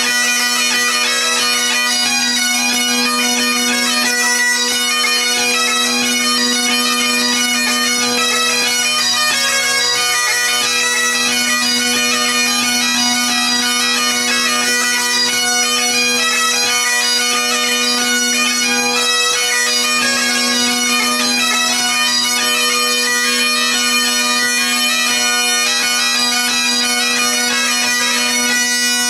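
A quartet of Great Highland bagpipes playing a medley: steady drones under a fast-moving chanter melody.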